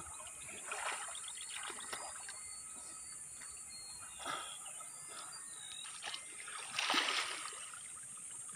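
Water splashing and sloshing around people swimming and wading in a shallow river. There are a few separate splashes, the loudest about seven seconds in.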